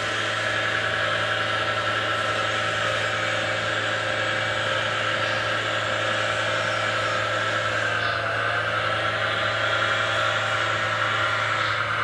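Radio-controlled scale model Hanomag wheel loader working, a steady mechanical whir that dips briefly in pitch about eight seconds in.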